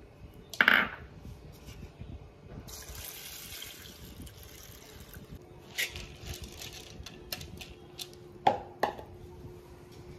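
Red lentils (masoor dal) being rinsed and handled in a plastic bowl: water splashing and pouring, then the wet lentils slid out into a clay pot. A few light knocks from the bowl and pot near the end.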